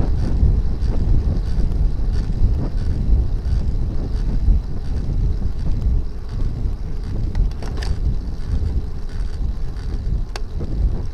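Wind buffeting the microphone of a camera mounted on a moving road bike: a steady low rumble, with two faint clicks in the second half.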